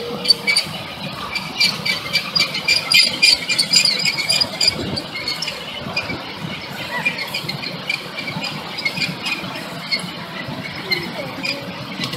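Steel wheels of a ride-on miniature railway train squealing and clicking on the rails as it runs along, over a low rumble of the moving cars.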